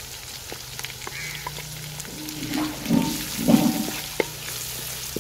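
Onion-tomato masala sizzling in hot oil in an aluminium karahi while the freshly added ground spices are stirred in with a wooden spatula. A louder burst of sound comes about three seconds in.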